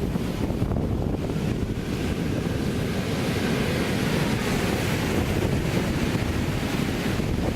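Sea waves breaking and washing onto the beach as a steady surf noise, with a wave's hiss swelling about halfway through. Wind buffets the microphone, adding a rumble underneath.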